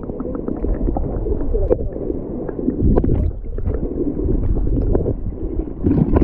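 Muffled water sloshing and gurgling heard from an action camera held under water, with many small ticks and knocks, as a hand holds a pike just below the surface.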